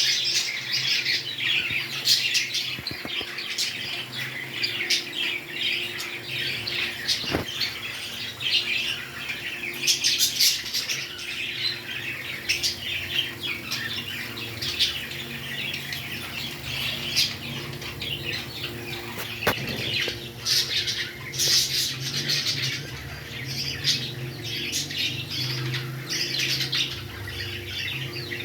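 Pet parrots chattering: a continuous, dense stream of short high chirps and squawks from several birds.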